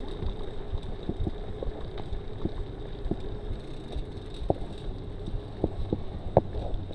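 Mountain bike ridden slowly along a street: steady rolling and wind noise on the microphone, with scattered small clicks and knocks from the bike, the loudest about six seconds in.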